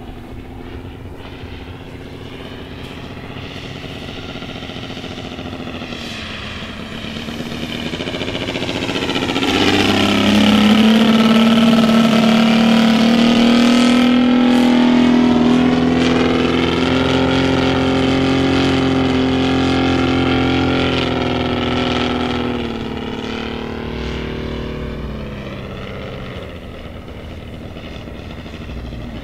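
Saito FG-60R3 60cc three-cylinder gas radial engine running at flight power in a radio-controlled P-47 model flying overhead. It grows louder about a third of the way in as the plane comes close, holds loud for roughly twelve seconds, then fades as the plane moves away.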